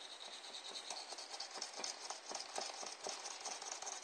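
Irregular scratching and light clicking from small parts being handled and worked on a workbench.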